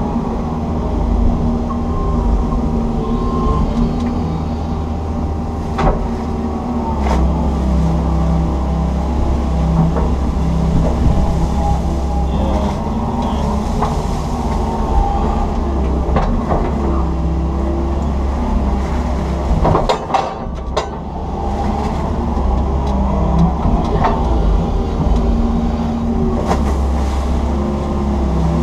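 Komatsu PC160 excavator's diesel engine running steadily as the boom and bucket dredge the ditch, heard from inside the cab, with occasional short knocks from the bucket and arm.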